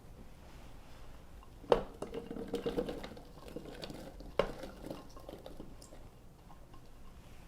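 Dishes and kitchen utensils knocking and clinking as ingredients are tipped into a blender jar: a sharp knock just under two seconds in, a run of clinking, then another knock about halfway through.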